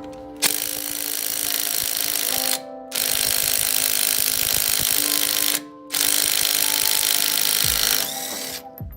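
DEKO 350 Nm cordless impact wrench running in three bursts of about two to three seconds each, with short pauses between, its hammer mechanism rattling continuously while the trigger is held; background music plays underneath.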